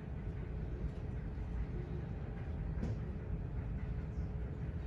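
Steady low rumble with a faint constant hum: background noise of an airport terminal beside a parked jet airliner. A single faint click comes about three seconds in.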